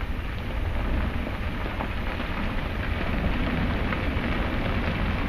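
Explosive eruption at Santiaguito's lava dome: a steady deep rumble with a hiss over it as an ash column jets from the summit.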